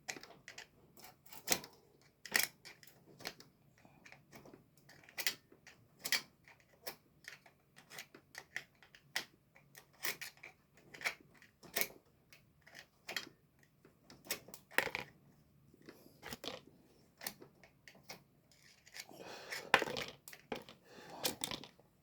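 Irregular sharp metallic clicks and clinks of tools and parts as a bicycle bottom bracket is taken apart to reach its loose ball bearings, with a short scraping stretch near the end.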